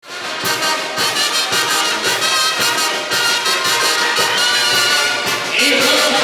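Mexican banda brass band playing, with trumpets and trombones over drum and cymbal strikes about twice a second. Near the end the brass swells into a louder held chord.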